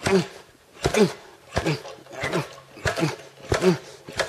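A man grunting with each hard jerk on a manual fry cutter's lever, about three strained grunts every two seconds, each with a sharp knock from the machine. The cutter is jamming on a sweet potato it cannot push through.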